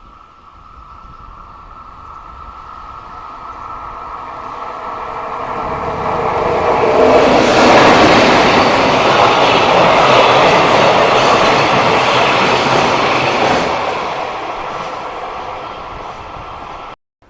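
A freight train passing close by. The rumble and rattle of the wheels builds over about seven seconds, stays loud for several seconds as the wagons go past, then eases off, with a steady high whine throughout. The sound cuts off abruptly near the end.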